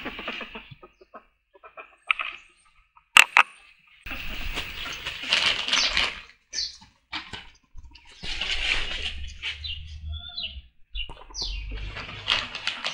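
Ferrets at play: a sharp knock about three seconds in, then bursts of scuffling and rustling, with a plastic bag crinkling near the end.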